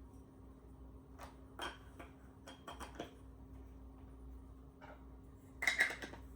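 Scattered light clicks and taps of camera lenses and parts being handled while they are cleaned, with a quick cluster of sharper clicks near the end, over a faint steady hum.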